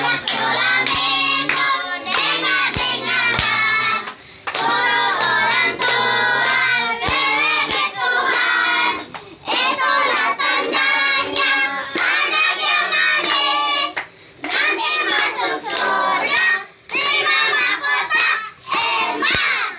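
A group of children singing a birthday song together in phrases with short breaks, clapping their hands along with it.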